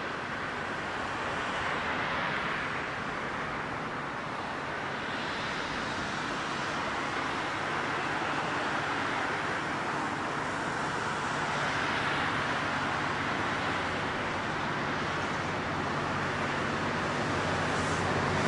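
Steady rushing rail and traffic noise, with the low drone of an approaching V/Line N class diesel-electric locomotive growing louder toward the end.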